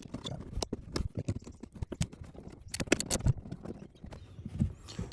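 Hand cutting a clearance notch: irregular sharp clicks, knocks and short scrapes from the blade working at the material.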